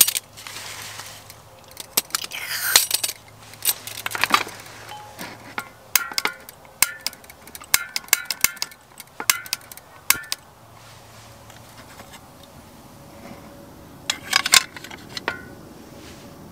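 Sharp metal clicks and clinks from a small folding camping gas stove as its legs and pot supports are unfolded and a gas canister is fitted, some clinks ringing briefly, with a quick cluster of clicks near the end.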